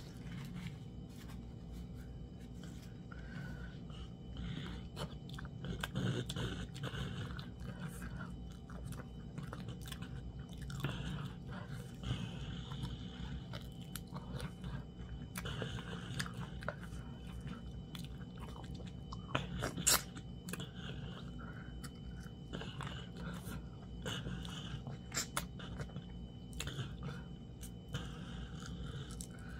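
Close-up chewing of a person eating fufu and meat in soup by hand: wet mouth sounds with many short clicks, over a steady low hum.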